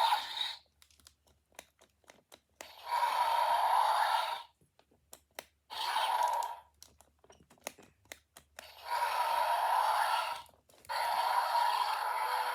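Four harsh, rasping dinosaur roars, each one to two and a half seconds long, with short light clicks between them, as of plastic toy figures knocking together.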